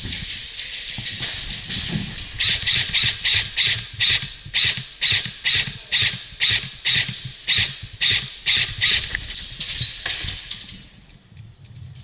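Hurried footsteps crunching on dry ground, about three steps a second, dying away near the end.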